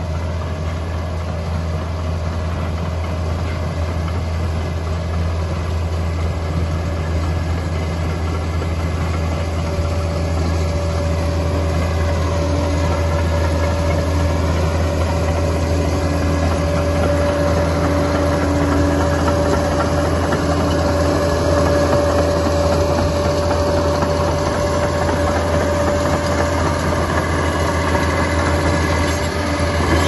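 Liebherr PR 746 crawler dozer's diesel engine running steadily under load as the machine pushes soil, growing gradually louder as it comes closer.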